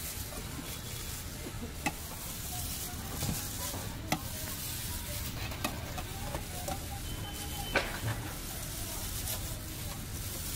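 A steady sizzling hiss with a few sharp clinks of steel scattered through it, as a chaat is assembled on a steel plate at a street food stall.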